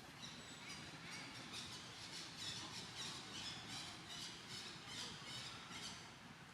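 A run of short, high-pitched animal calls, two or three a second, easing off near the end.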